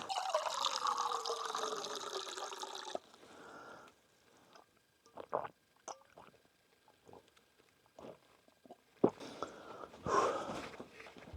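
Water pouring for about three seconds, its pitch falling as it runs, then stopping abruptly. A few small clicks and knocks follow, with one sharp click near the end.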